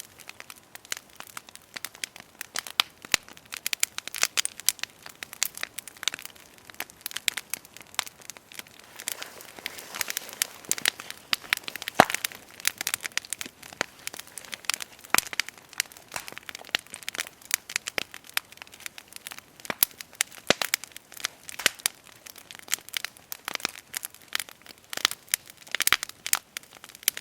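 Long log fire of burning wood crackling, with dense irregular sharp pops and snaps.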